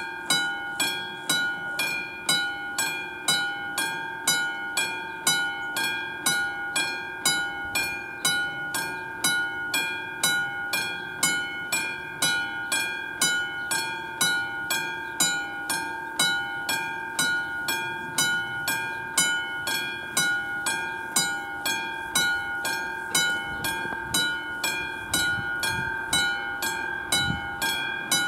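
Classic electromechanical level-crossing warning bell ringing steadily, about two strikes a second, each strike ringing on. It signals that the crossing is active for an approaching train.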